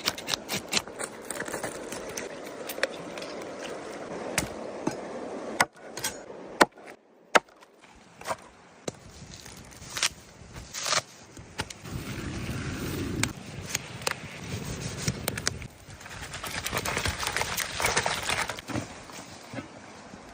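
Food being prepared in a kitchen: irregular scraping with many sharp clicks and knocks, as of a knife working on fish, with a quieter stretch about a third of the way through.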